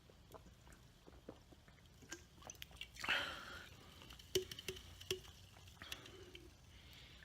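Faint mouth and lip sounds: scattered wet clicks, a short breathy rush about three seconds in, then a few more clicks.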